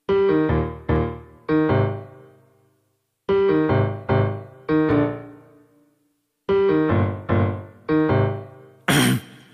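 Background piano music: a short three-note figure is played three times, each time followed by a pause, the notes ringing out and fading. Near the end, a brief burst of noise leads into another track.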